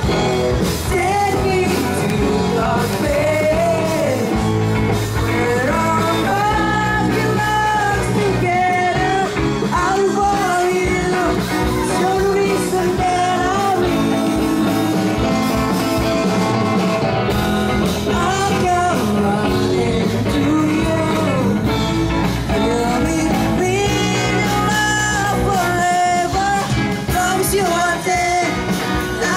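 Live rock band playing through PA speakers: a sung vocal melody over electric guitar, keyboard and drums.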